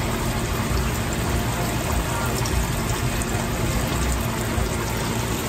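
Battered shrimp deep-frying in a saucepan of hot oil, a steady sizzle and bubbling.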